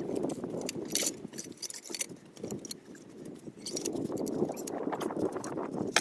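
Steel over-the-tire skid steer tracks being shifted by hand, their metal links giving irregular clinks and rattles.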